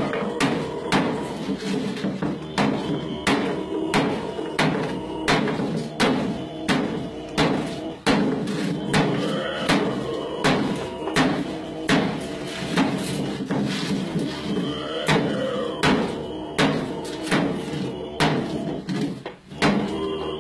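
Music with a steady knocking beat about twice a second over sustained low droning tones.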